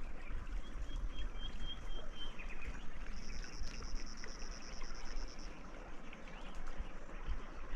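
Outdoor nature ambience: a thin, high bird call in the first couple of seconds, then a high, even buzzing trill for about two seconds midway, over a low rumble.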